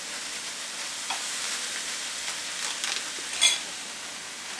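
Stir-fry of vegetables, beef and noodles sizzling steadily in a hot non-stick wok, with a few clicks and knocks as the food is stirred with tongs; the sharpest click comes about three and a half seconds in.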